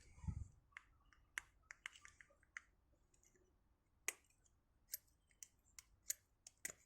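Faint, scattered metallic clicks, about a dozen at uneven intervals, from a vintage Schlage padlock being handled and its shackle worked up and down.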